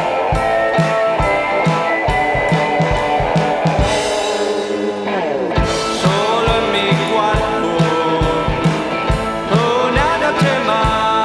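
Rock band music: electric guitar and drum kit keeping a steady beat, with singing. About four seconds in the drums drop out and a falling pitch glide leads the full band back in at about six seconds.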